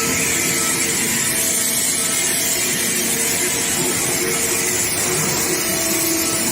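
Induction quenching equipment running: a steady hiss with a few faint steady tones beneath it.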